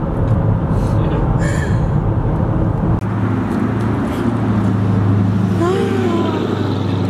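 Road and engine noise inside a moving car on a highway. About three seconds in it cuts abruptly to a steady low hum with a few brief vocal exclamations from a man.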